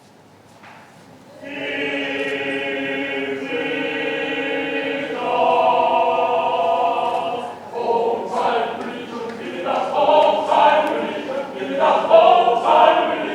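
Choir singing: long held chords begin about a second and a half in, then give way to shorter, more rhythmic phrases from about eight seconds.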